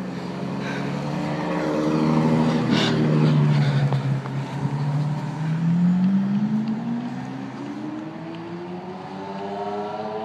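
A sports car engine: its pitch drops over the first few seconds, then rises steadily from about five seconds in as the car accelerates.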